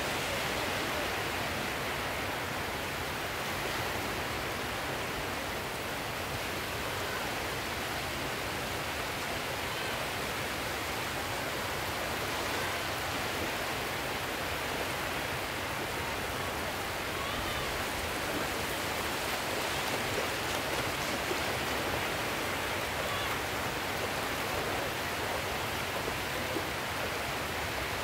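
Steady rushing noise of sea surf washing onto the shore.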